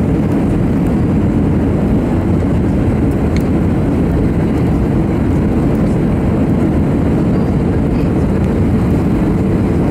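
Steady cabin noise of an Airbus A320 on final approach with flaps out, heard from a seat over the wing: an even, low rush of airflow and the CFM56 turbofan engines at approach power.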